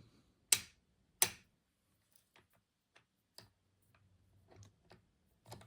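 Metal clicks from the action of a Colt Model 1860 Army percussion revolver being worked by hand: two sharp clicks in the first second and a half, then several fainter, irregular clicks.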